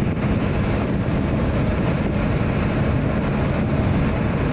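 Steady road noise inside a moving car's cabin: engine and tyre drone at cruising speed with a low hum underneath.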